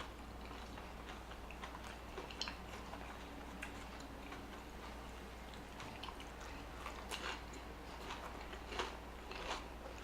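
A person chewing a mouthful of fast food close to the microphone, with soft irregular mouth clicks and smacks.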